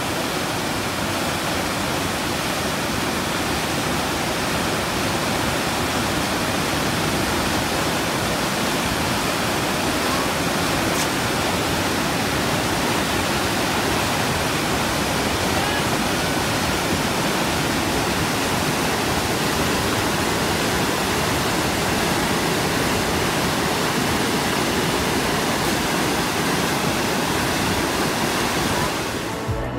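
River whitewater pouring over a rock ledge and churning below it: a loud, steady rush of water that holds even throughout.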